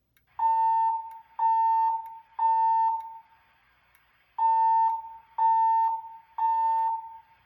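Fire alarm speaker sounding its evacuation tone between voice messages. It plays a steady, slightly buzzy beep in the temporal-3 pattern: three half-second beeps about a second apart, a pause, then three more.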